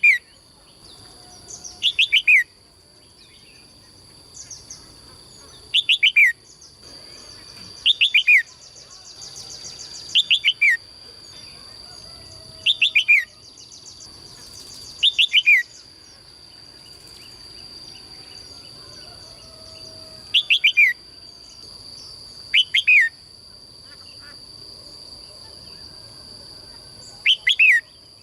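A songbird calling over and over, each call a quick pair or trio of high notes sliding downward, repeated about every two seconds. A steady high-pitched tone runs underneath throughout.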